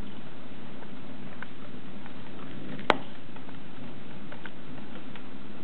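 Rain falling steadily, with a few scattered drop ticks and one sharp click about halfway through.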